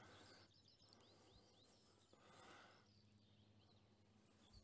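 Near silence, with faint birdsong: a few quick, high chirps from small birds, mostly in the first couple of seconds, over a low steady hum.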